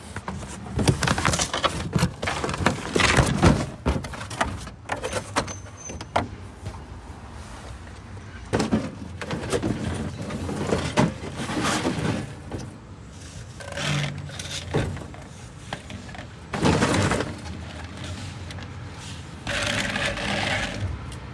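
Irregular knocks, clatters and scraping, with bursts of rustling noise.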